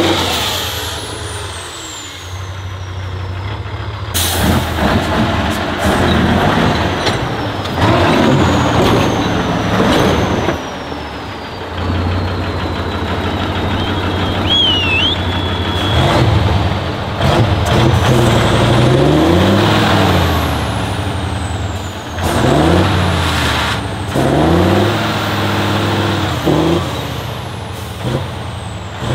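Heavy 6x6 trial truck's diesel engine running under load and revving, its pitch rising and falling again and again, more often in the second half.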